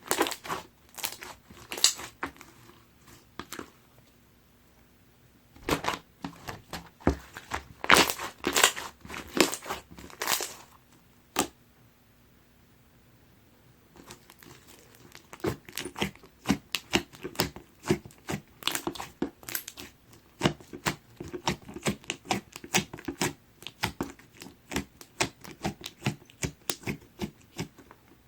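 Pearl slime being squished and poked by hand, giving runs of sharp, crackly pops and clicks in bursts, with a quiet gap of a couple of seconds about halfway through.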